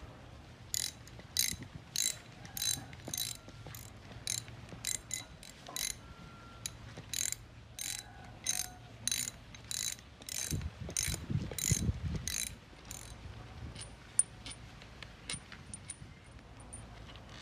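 A hand tool worked in short, sharp mechanical strokes, about two a second, for some twelve seconds, with a low rumble near the end of the strokes. A few faint ticks follow.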